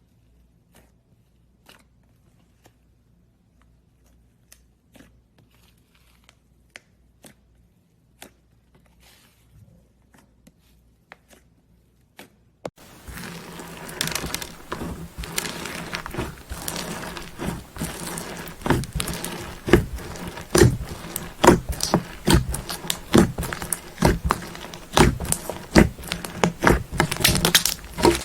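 Slime being squished and crushed by hand: a few faint sticky clicks and pops at first, then about halfway through a sudden switch to a much louder, dense run of crackling and crunching.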